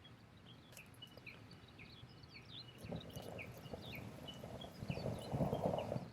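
A small bird calling over and over with short downward chirps. From about halfway a rough rustling, scuffing noise builds up, is loudest near the end, and then stops abruptly.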